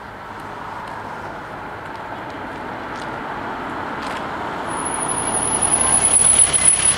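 A car approaching on the road, its engine and tyre noise growing steadily louder, then easing off abruptly near the end as it slows. A thin, steady high-pitched whine sounds over the last two seconds.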